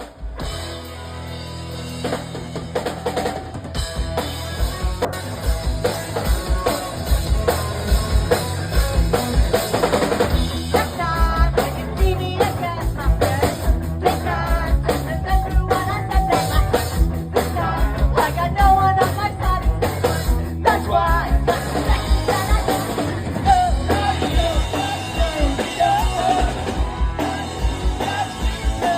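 Live rock band playing a song with a steady drum-kit beat, starting just after a short pause and building up over the first couple of seconds, with melodic lines over the top.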